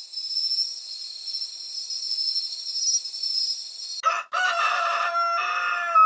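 A rooster crowing: one long crow in a few joined parts that starts about four seconds in and falls in pitch at the end. Before it there is a steady high-pitched sound.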